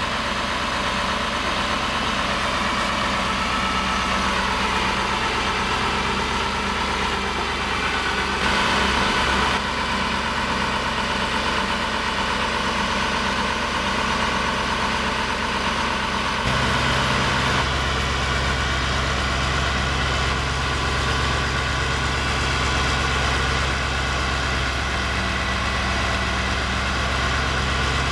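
KamAZ-43118 truck's diesel engine idling steadily, with a brief louder patch about nine seconds in and a deeper, stronger hum from about halfway through.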